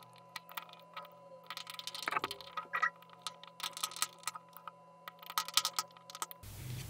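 Screwdriver driving small machine screws through an Arduino Uno board into spacers on a plexiglass plate, with loose hardware handled alongside: many light, irregular clicks and taps.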